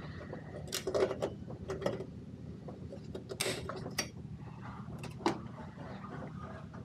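A string of sharp clicks and snaps from hand work on wiring: red-handled cutters trimming tie straps around an evaporator fan motor, with a short scraping rustle about halfway. A steady low hum runs underneath.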